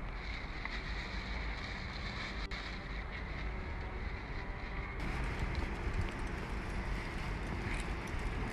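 Wind rumbling on a phone microphone over street noise, with the rustle and light clatter of plastic bags and things being rummaged through in a car boot.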